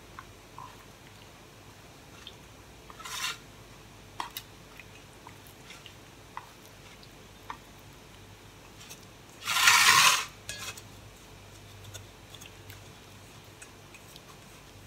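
Silicone spatula scraping along a stainless steel steaming pan, lifting and rolling a steamed rice-flour sheet: a short scrape about three seconds in and a longer, louder one about ten seconds in, with light clicks and taps of spatula on metal between.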